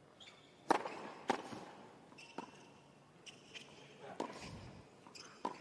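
Tennis rally on a hard court: about six sharp hits of racquet strings on the ball and the ball bouncing, roughly a second apart, with short shoe squeaks between strokes.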